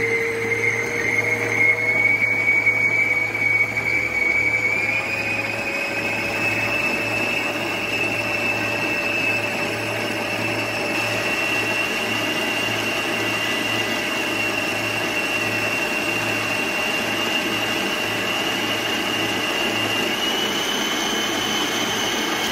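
Arno 600 W planetary stand mixer running with its flat beater, mashing cooked potatoes: a steady motor whine that steps up in pitch about five seconds in and again near the end.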